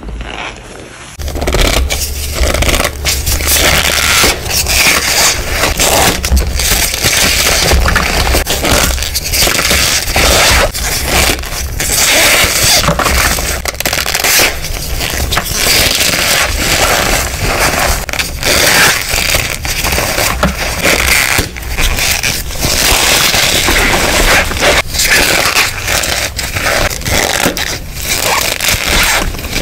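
Hands crushing and crumbling blocks of dyed gym chalk packed in cornstarch: a dense, continuous crunching and crackling that starts about a second in.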